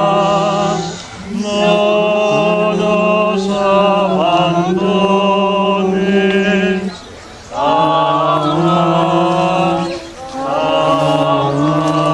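Male voices singing a chant in long sustained phrases, with short breaks for breath about a second in, around seven seconds and around ten seconds.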